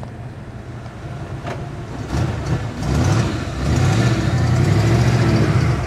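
Diesel engine of an EMD GP60 locomotive throttling up about two seconds in, growing louder and rising in pitch, then running steadily at the higher setting.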